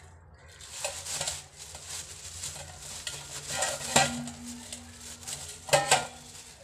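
Plastic bag crinkling as raw goat meat is tipped out of it into a stainless steel bowl, with the meat landing in a few knocks against the steel. The sharpest knock, about four seconds in, is followed by a faint steady ring, and there is another burst of rustling and knocks near the end.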